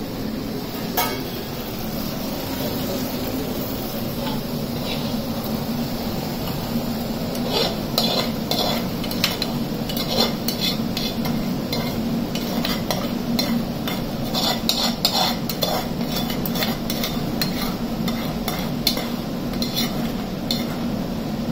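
A metal spoon scraping and knocking against the inside of a metal pot as thick curry is scraped out into another pot: many short, quick scrapes and clicks, busiest from about seven seconds in, over a steady low hum.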